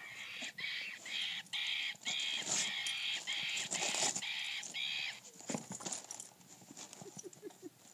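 A dog chomping a plush toy's squeaker, giving a quick run of high squeaks that bend in pitch, about two a second, for the first five seconds. Crinkling wrapping paper runs under and after the squeaks.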